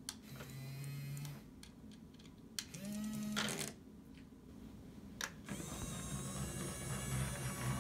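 Small electric motors of toy forklifts whirring in short runs, three times, the last one longer, with a few light plastic clicks between runs.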